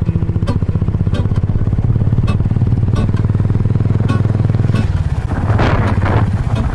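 Royal Enfield motorcycle engine running steadily on the move, heard from the pillion seat, with a louder rush of wind noise near the end.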